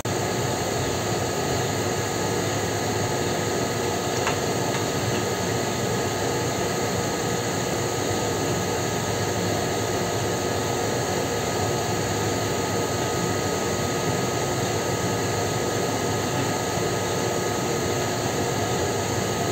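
A steady industrial drone with a few constant faint tones in it, the background hum of a printing-press hall's ventilation and machinery.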